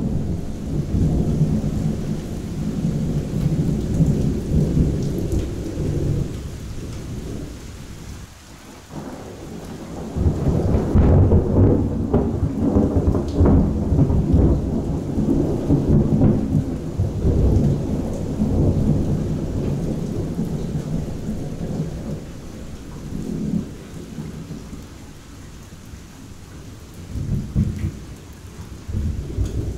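Thunder rolling over steady rain. A first roll fades out about eight seconds in, a louder, longer roll breaks about ten seconds in and slowly dies away, and another rumble starts near the end.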